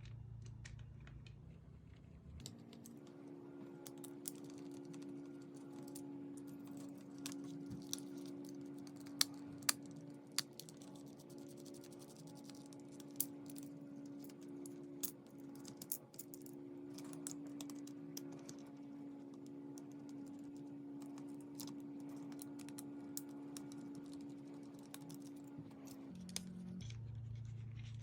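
Scattered small clicks and taps of hand tools and plastic and metal parts as steering wheel pieces are removed, irregular and some sharper than others, over a faint steady hum.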